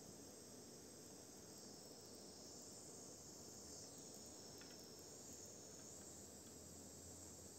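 Near silence with a faint, steady high-pitched hiss.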